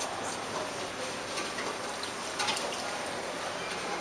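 Water trickling steadily along a concrete street drain, with a few light clicks about two and a half seconds in.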